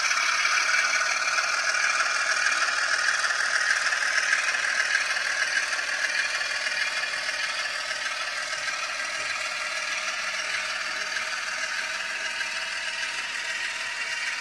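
N gauge Dapol Class 27 model locomotive running with its DCC sound decoder playing a Class 27 Sulzer diesel engine through a tiny speaker, thin with no bass. It is mixed with the rattle and whir of the model's motor and wheels on the track, and slowly fades as the train draws away.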